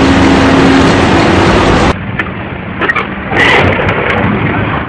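Heavy excavator machinery noise, loud and dense with a steady hum. About two seconds in it cuts to quieter engine noise broken by scattered knocks and clatter.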